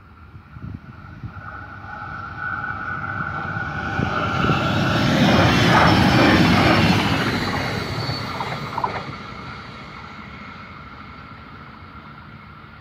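Stadler GTW electric multiple unit approaching and passing over a level crossing. A steady whine carries through the approach, then the rumble and rattle of wheels on the rails swells to its loudest about six seconds in and fades as the train moves away.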